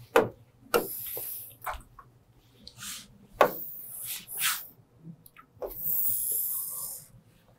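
A few sharp taps and knocks on the glass of an interactive smart board as it is worked by hand and stylus. There are two stretches of hissy rubbing, about a second in and again from about six to seven seconds.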